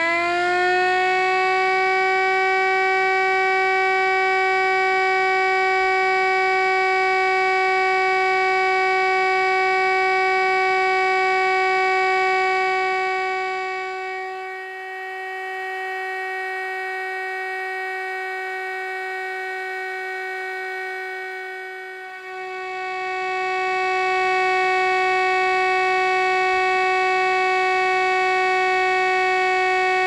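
Miniature 3D-printed Federal Signal STL-10 siren, driven by a small 130-size DC motor, sounding its steady alert tone. It finishes spinning up to pitch in the first second, then holds one steady wail, dipping in loudness for several seconds midway.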